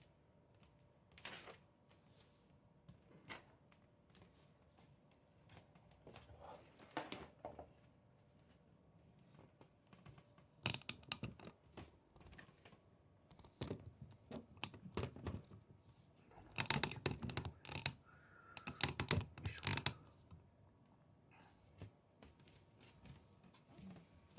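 Irregular tapping, clicking and rustling. It comes in scattered short clusters, with the densest and loudest run of rapid clicks from about two-thirds of the way in.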